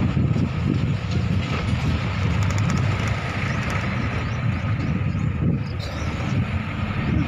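Steady engine and road noise of a vehicle driving along a rural road, heard from on board.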